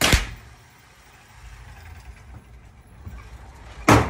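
AR-15 rifle firing 5.56 rounds: two shots about four seconds apart, one right at the start and one near the end, each a sharp crack with a short echo off the walls of an indoor range.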